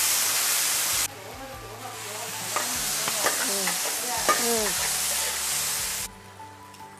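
Loud sizzling of meat being stir-fried in a large iron wok, with a metal spatula scraping and squeaking against the pan in the middle. The sizzle drops sharply about a second in, builds again, and falls away suddenly near the end.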